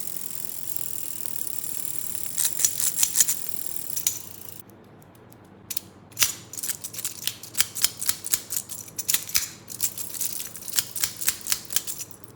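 Sharp plastic clicks and snaps of small fidget toy mechanisms worked by hand. A steady high hiss runs under the first few seconds, with a short run of clicks about halfway through it. In the second half come rapid clicks, several a second.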